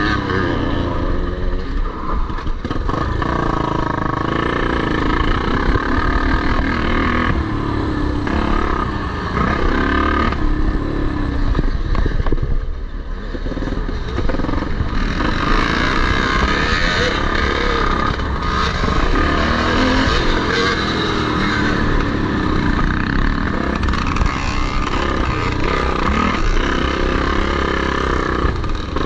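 Vintage motocross bikes racing, their engines revving up and down as they accelerate and shift.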